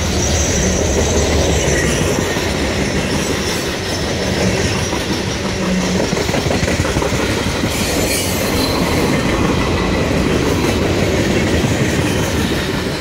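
Freight train cars rolling past, a steady rumble with the clatter of wheels over the rails and faint wheel squeal now and then.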